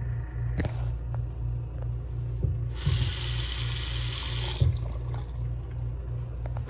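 Bathroom sink faucet running into a white basin for about two seconds, then shut off with a click. A low pulsing hum sits underneath.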